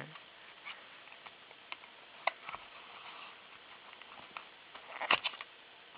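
Scattered small clicks and knocks from a Zippo lighter and its case being handled, with a quick cluster of louder clicks about five seconds in.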